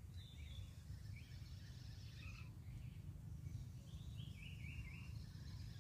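Birds chirping now and then over a steady low rumble of outdoor background noise.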